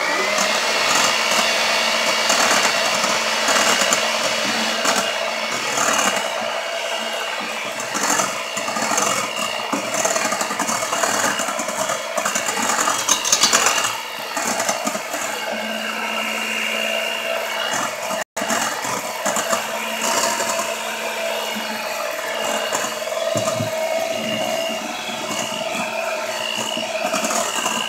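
Electric hand mixer running steadily, its beaters whisking stiff egg whites in a stainless steel bowl as the yolks and sugar are beaten in.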